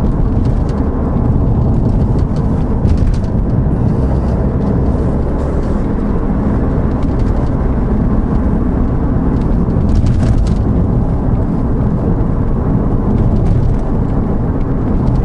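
Steady engine and tyre rumble inside the cabin of a Ford Focus ST on the move, with a couple of faint knocks. The rear suspension now runs quiet over small bumps, its earlier noise cured by the new Steeda sway bar.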